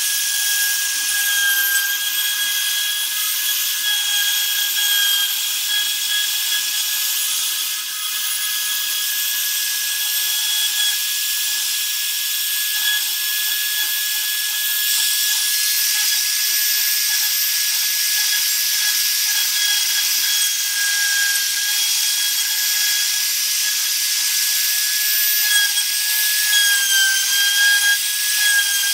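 Homemade CNC router carving a wooden board: the spindle motor runs with a steady high whine while the bit cuts the wood with a continuous hiss. The whine wavers slightly near the end.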